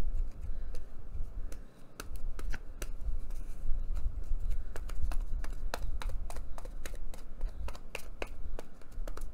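Hands handling paper and brushing glue onto a napkin laid on cardboard: irregular light clicks and short rustles, over a low steady rumble.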